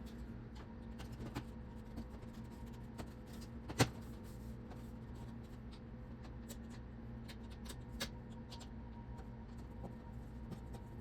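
Light irregular clicks and scraping of a microwave's vent grate being fitted back on and screwed down, with a sharper click about four seconds in and another about eight seconds in, over a steady low hum.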